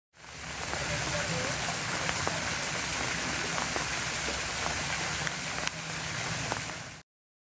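Steady rushing splash of a thin cascade of water falling from a stone grotto arch into a pool. It fades in quickly at the start and cuts off abruptly near the end.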